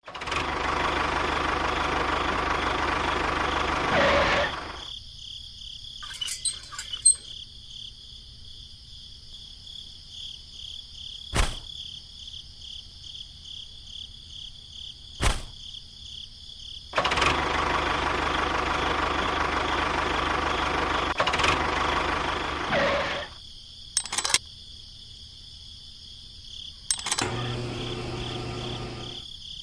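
Small motor of a miniature model machine running in two stretches of about four to six seconds each, with a few sharp clicks in the quieter gaps between.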